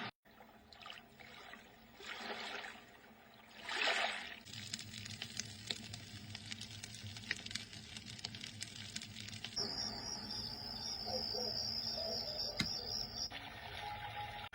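Nature sounds played by a sunrise alarm clock, switching track every few seconds: a few swelling rushes, then a crackling hiss, then a steady high-pitched pulsing insect trill, then trickling water near the end.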